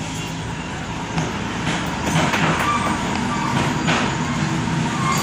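Steady road traffic noise: vehicle engines running, with a continuous rumble.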